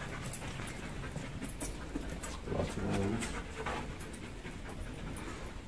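Footsteps crunching over debris on the floor, with a short low voiced murmur about three seconds in.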